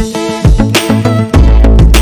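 Background music with a steady, heavy bass beat.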